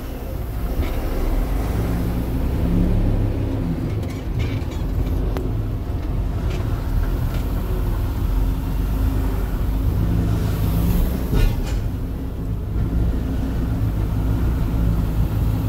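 Semi truck's diesel engine running steadily at low speed, heard from inside the cab, with a few short clicks and rattles.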